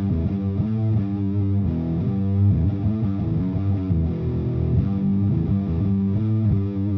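Distorted electric guitar played through a Kitsune fuzz pedal, a modified Big Muff, with its tone knob turned all the way down: a dark, bass-heavy fuzz with the treble cut away, a dramatic tone cut.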